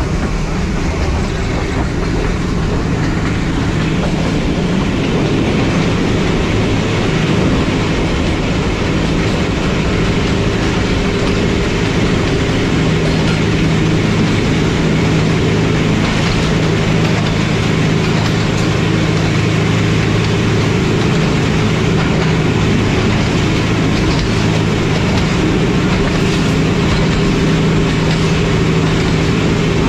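Diesel-hauled passenger train running along the line, heard from on board: a steady rumble of wheels on track with a low, even hum, getting a little louder a few seconds in.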